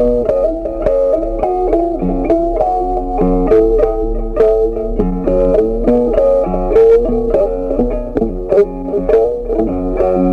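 Background music: a plucked guitar playing a quick, steady run of notes.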